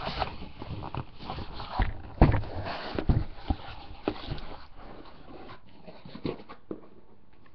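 A cardboard shipping case being handled and its boxes of trading cards slid out and stacked: rustling, scraping cardboard with several dull knocks in the first half, then quieter handling.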